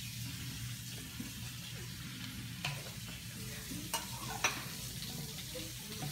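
Kitchen tap running in a steady hiss, filling a gallon container with water for rinsing the bottles. A few light clicks and knocks about a third of the way in and past the middle come from plastic bottles and caps handled on the stone countertop.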